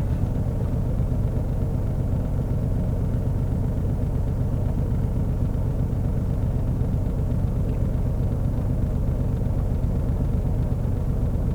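Steady low rumble of a vehicle driving: engine and road noise without change.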